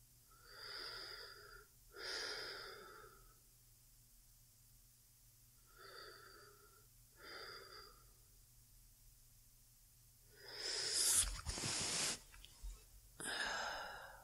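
A woman's slow, sleepy breathing close to the microphone: soft breaths in and out every few seconds, then a louder, harsher breath about ten seconds in, and one more soft breath near the end.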